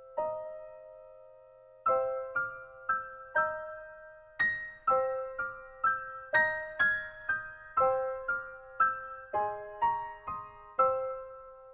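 Background music: a slow, gentle melody of single struck keyboard notes, each ringing and fading away, about two notes a second.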